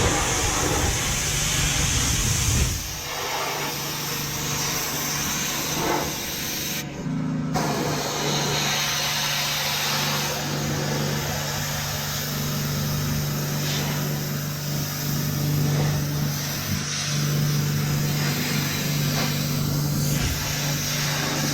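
Pressure washer running with a steady hum while its water jet hisses against a pickup truck's bodywork. About three seconds in, a louder low rumble drops away and the steady hum and spray carry on.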